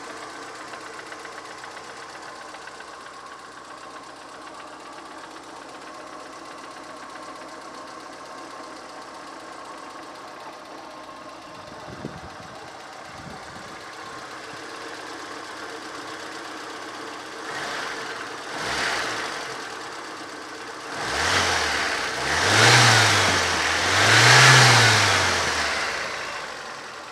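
VAZ 2108 1.3-litre four-cylinder engine idling steadily, then revved in about five short blips near the end, the last three the biggest. Through it runs an extraneous knock, the kind heard at low revs and under load, whose cause the owner does not know.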